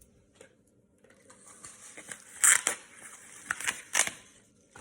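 A taped package ripped open by hand: rustling and crinkling of paper and painter's tape, rising into several sharp tearing rips in the second half.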